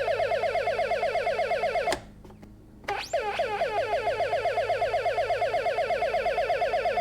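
Electronic siren circuit on a Radio Shack 300-in-One project kit, an astable multivibrator, sounding a fast warble of short chirps falling in pitch, about seven a second. It cuts out about two seconds in and starts again nearly a second later, its first chirps sweeping down from higher before settling into the same warble. It is the kit's patrol car siren working as it is supposed to sound.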